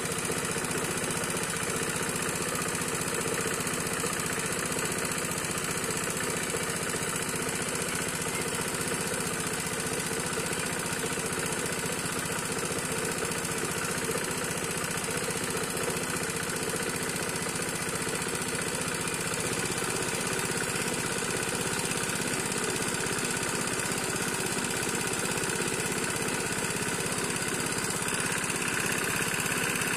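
Engine of a water pump draining the pond, running steadily, its low note shifting slightly about two-thirds of the way in.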